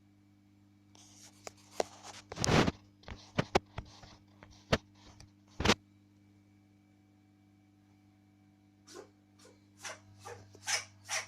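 A ferret scrabbling and rubbing, with scratchy rustles and clicks and a louder burst about two and a half seconds in. Near the end it starts a run of short, sharp sneezes that come closer together.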